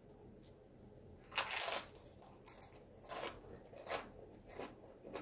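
Close-up crunching of tortilla chips being bitten and chewed: one loud crunch about a second in, then several shorter, softer crunches.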